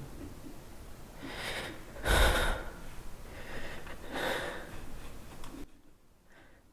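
A man's heavy, breathy exhalations and gasps, about four of them, the second the loudest, then near silence. It is a distressed character's breathing, performed by the voice actor.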